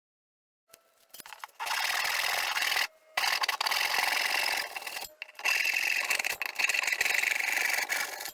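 Wood being cut or sanded with a rough, rasping sound, in three long passes of about one to three seconds each with short breaks between.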